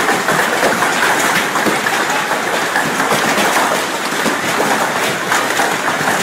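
Heavy hail pelting a trampoline mat and plastic tarps: a loud, dense, steady clatter of countless small impacts.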